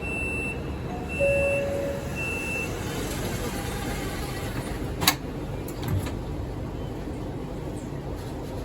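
Subway train standing at the platform with its low rumble, while three short high beeps sound about a second apart, like a door-closing warning. A single sharp clack comes about five seconds in.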